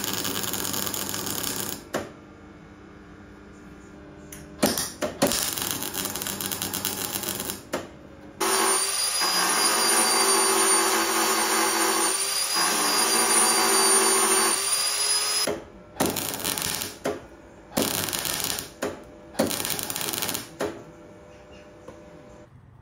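MIG welder crackling in short bursts, stitch-welding a new steel sill section, then a narrow-belt power file running steadily for about seven seconds as it grinds down the welds, then several more short bursts of welding.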